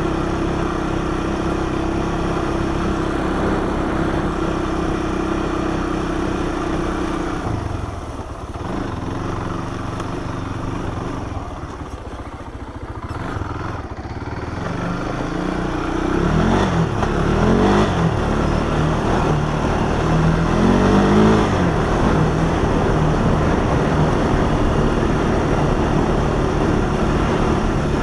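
Honda four-wheeler's single-cylinder four-stroke engine running while riding. It eases off about eight seconds in, then revs back up with its pitch rising and falling twice before holding steady.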